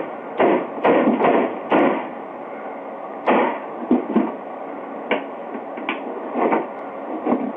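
A hatchet striking a Sony 5-disc CD changer's casing again and again, about a dozen irregular blows, trying to split the unit apart.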